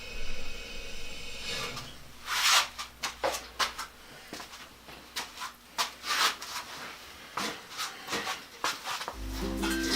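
Irregular rubbing and scraping strokes over a low steady hum, with music coming in near the end.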